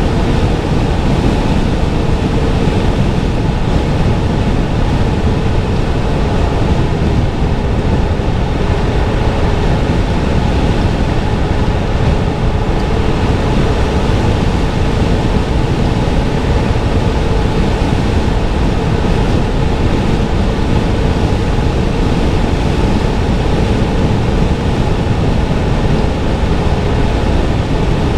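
Steady road and tyre noise of a car driving, heard from inside the cabin.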